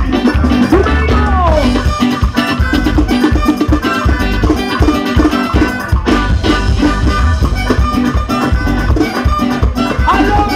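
Live band playing loudly with drum kit, electric bass and guitars.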